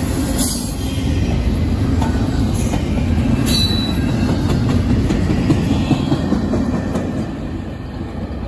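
Double-stack intermodal container cars rolling past at speed, their steel wheels rumbling steadily on the rails, with a brief high squeal about three and a half seconds in. The rumble fades near the end as the tail of the train passes and draws away.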